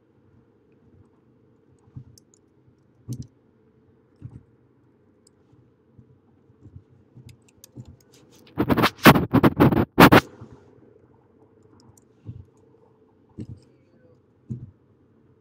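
Typing on a computer keyboard: scattered soft key taps, then a quick run of loud, sharp keystrokes about nine seconds in.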